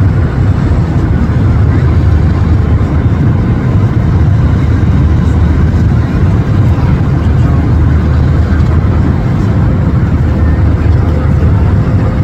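Steady low rumble of an airliner cabin in flight: engine and airflow noise heard from inside the cabin, with a faint steady hum on top.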